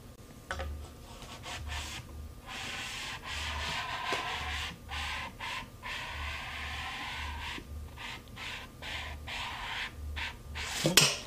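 Close, irregular scraping and rubbing as hands handle the Carl Gustaf recoilless rifle's tube right at the microphone, with a sharper knock near the end.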